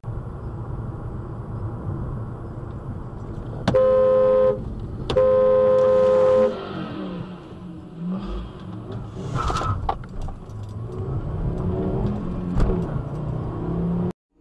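Car horn honking twice, a short blast and then a longer one, over steady road noise. After the horn, an engine revs up and down as a classic Ford Mustang slides sideways across the road in a cloud of tire smoke.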